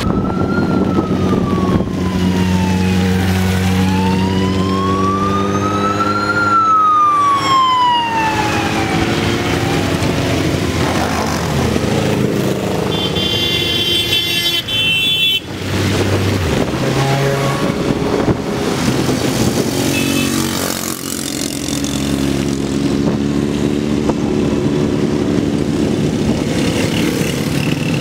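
Siren of a police motorcycle wailing, slowly rising and falling, over the engines of a procession of motorcycles, and dying out about ten seconds in. A horn sounds for about two seconds a little later, then the engines of the passing motorbikes run on steadily, with tyre noise from the wet road.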